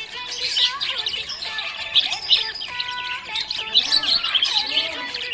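Budgerigars chirping and warbling in continuous, overlapping chatter of quick, high chirps.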